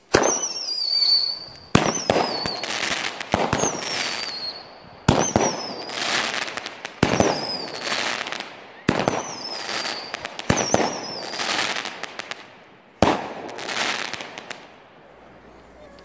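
Showtime 'Magic Crackles' seven-shot firework cake firing. Each shot goes off with a sharp pop and a high wavering whistle, then a spread of crackling. The shots come about every two seconds, and the last one is about three seconds before the end.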